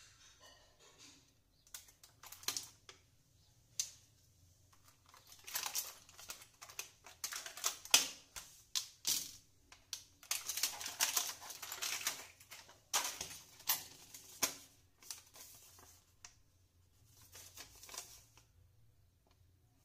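Clear plastic blister packaging and a paper leaflet being handled: irregular clicks, crinkles and rustles, busiest in the middle and quieter toward the end.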